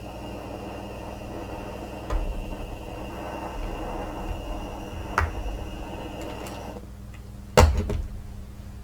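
Sharp metal knocks from a small pan and pewter being handled, three of them, the loudest near the end, over a steady rushing noise that cuts off about seven seconds in.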